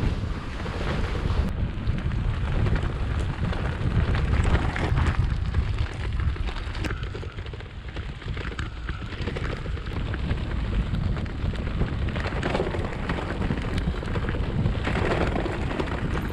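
Wind buffeting the microphone of a bicycle riding downhill on a gravel bike path, with the tyres crackling steadily over loose gravel.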